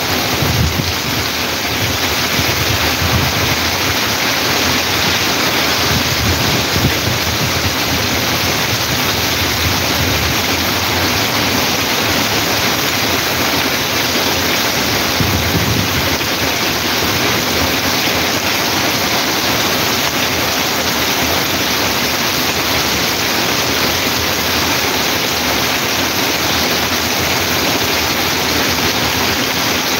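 Heavy rain pouring down, with runoff rushing across a flooded street. The downpour makes a steady, even hiss.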